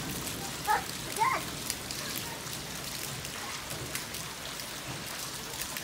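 Steady rain falling on wet paving and gravel, with many fine drop ticks and water splashing from a downspout. About a second in, two short high-pitched cries, the loudest sounds, like a small child's voice.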